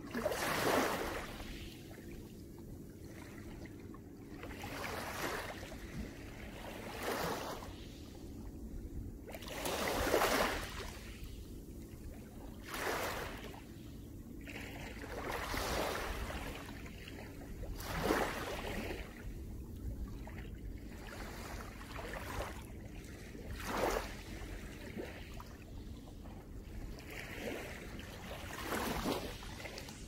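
Small waves of a calm sea lapping onto a pebble beach, each wash a brief hiss of water running over the stones, coming every two to three seconds at uneven spacing.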